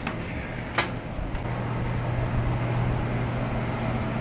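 A single sharp knock a little under a second in, over a low rumble, then a steady low machine hum.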